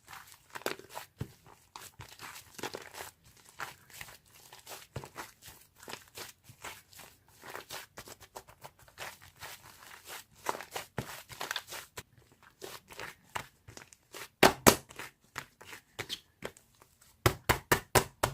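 Irregular crinkling and crackling handling noise, with a pair of loud sharp clicks about two-thirds of the way through and a quick run of loud clicks near the end.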